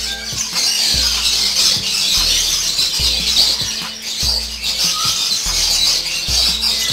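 A dense chorus of many small cage birds chirping and chattering at once, under background music with a steady low beat.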